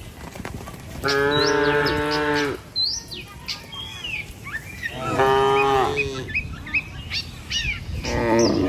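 Cattle mooing: three long, loud moos, the first about a second in, the second near the middle and the third beginning near the end. Small birds chirp between and over them.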